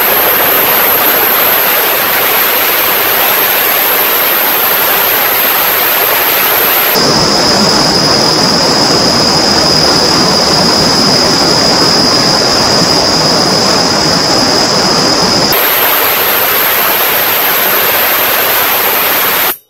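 Homemade 28 kHz ultrasonic cleaner running, its piezoelectric transducer horn driving a water-filled saucepan: a loud, steady hiss of cavitation with a high-pitched whistle over it. About seven seconds in, while a finger is held in the water, the whistle drops to a lower pitch; it returns to the high pitch near the end. The sound cuts off abruptly.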